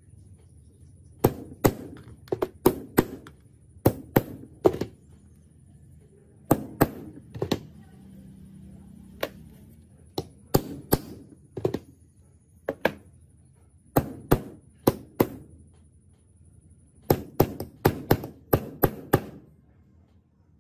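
Hammer tapping a hollow hole punch through gasket sheet on a steel block: sharp metallic taps in quick bunches of two to five, with short pauses between as the punch is moved.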